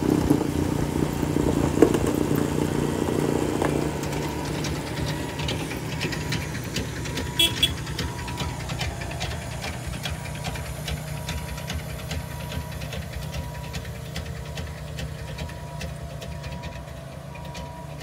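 Snowplow with a snow blower attachment, its engine running steadily while it throws snow, then fading as the machine moves away.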